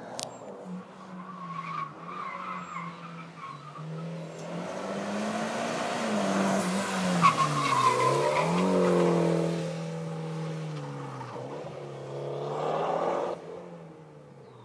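Mitsubishi Lancer Evolution X MR's turbocharged 2.0-litre four-cylinder with a Perrin aftermarket muffler, revving up and down as the car is driven hard through slalom turns, with the tires squealing. It is loudest as the car passes about halfway through, then fades with one more rise that cuts off sharply near the end.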